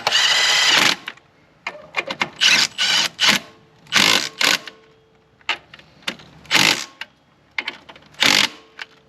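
Impact wrench driving the alternator's mounting bolts into the aluminum mount, first in a burst of about a second, then in a series of short blips as the bolts are snugged down.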